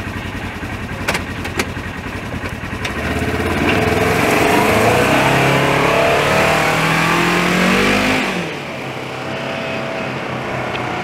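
Polaris Ranger 1000 side-by-side's twin-cylinder engine running, then revving up with rising pitch as the machine pulls away in low range on its new 6-inch portal gear lift. The engine eases off about eight seconds in, and the sound drops to a lower, steady level as the machine moves off.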